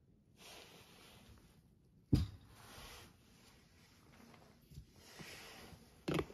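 A glass olive oil bottle set down on a countertop with a solid knock about two seconds in, then a sharper knock near the end as a plastic sprayer top is fitted onto a small glass oil jar, over a faint steady hiss.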